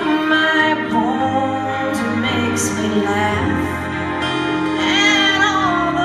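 A woman singing live into a microphone over keyboard accompaniment, holding long notes with vibrato, heard from the audience.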